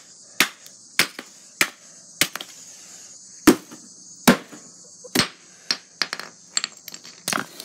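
Repeated sharp whacks of a thin rod striking a piece of cardboard box: about seven hard hits in the first five seconds, roughly one every half second to second, then a few lighter taps.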